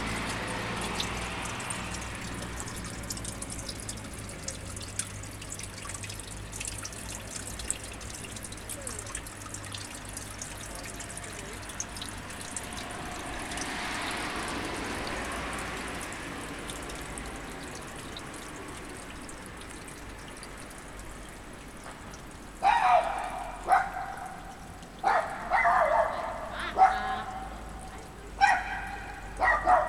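A steady trickle of running water for most of the time, then a dog barking repeatedly, in short, irregularly spaced barks, over the last seven seconds.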